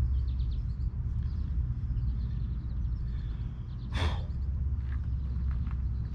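Wind rumbling on the microphone, with faint birdsong and a single short breathy sigh from a man about four seconds in.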